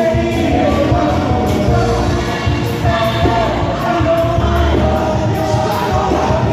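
Gospel singers performing an upbeat gospel song together over instrumental accompaniment.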